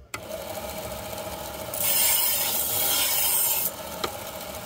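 Belt grinder switched on just after the start, its motor running with a steady hum, then a steel knife blade pressed to the moving abrasive belt: a loud rasping hiss for about two seconds, a short break with a click, and grinding again at the very end.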